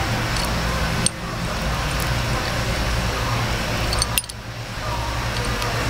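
Light metallic clinks of a steel nut and wrench being handled, over a steady low workshop hum.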